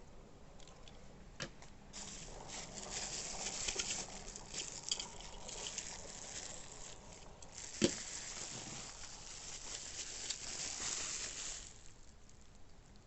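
Packaging rustling and crinkling as items are unwrapped by hand, dying away near the end, with a single sharp knock about eight seconds in.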